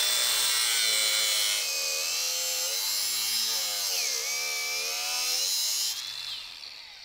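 Cordless angle grinder with a cut-off wheel cutting through a rusty roller chain, with a steady high whine and a harsh grinding hiss. The motor's pitch sags under load about four seconds in, then the grinder winds down about six seconds in.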